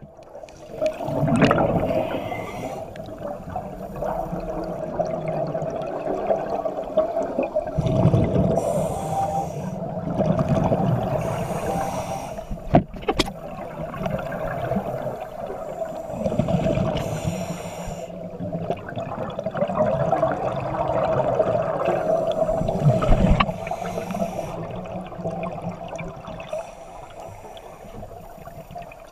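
Scuba diver's regulator breathing, heard underwater: a hissing inhale and a rumbling burst of exhaled bubbles, a breath about every seven seconds, over a steady hum.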